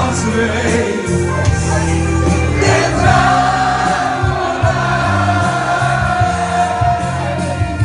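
Live smartlappen (Dutch sentimental pop) music with singing over a steady bass line; from about three seconds in a voice holds one long note.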